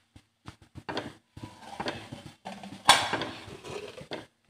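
A spatula stirring and scraping a vegetable filling in a kadhai, in short irregular strokes, with a sharper knock against the pan about three seconds in.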